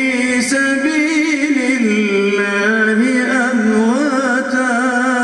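A man reciting the Qur'an in the melodic, ornamented tajweed style: one voice holding long notes and bending them through winding runs.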